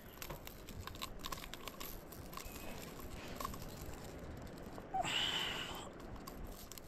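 Hands handling a walleye in a mesh landing net: faint rustling and scattered small clicks, with a hissing rush lasting about a second about five seconds in.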